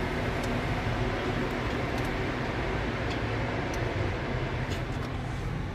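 Steady car noise heard from inside the cabin while driving, with a few faint, irregular ticks.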